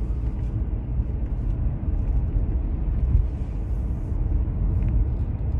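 A car on the move, heard from inside the cabin: a steady low rumble of road and engine noise.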